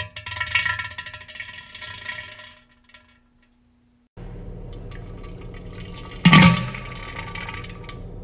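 Wet, bubbly farts of diarrhea: a long spluttering burst that trails off over about two and a half seconds, then after a short gap a second, shorter burst over a steady background noise.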